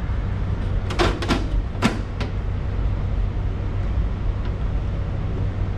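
Aluminium folding table being folded shut into its carrying-case form: a few sharp metal clicks and rattles about a second in and again near two seconds, over a steady low hum.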